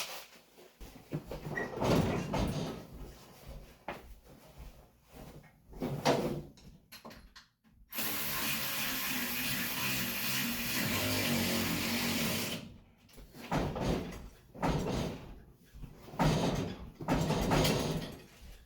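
Tools clinking and knocking on metal, then a handheld power tool running steadily for about four and a half seconds while a bell housing bolt is driven, stopping suddenly, followed by more clinks and knocks.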